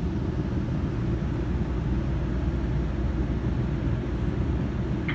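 Steady low rumble of a stationary GO Transit commuter train, heard from inside the coach.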